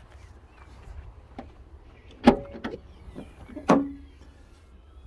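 Tailgate of a BMW 1 Series hatchback being opened: two sharp clunks about a second and a half apart, with a few lighter clicks around them.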